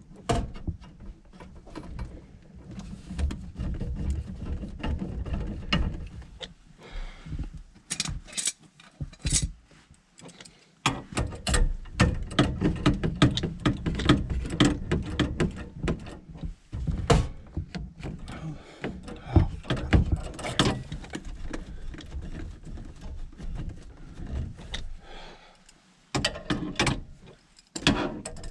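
Hand tools and metal parts working on a furnace gas valve and its fittings: irregular clicks, knocks and rattles, with a short lull about ten seconds in.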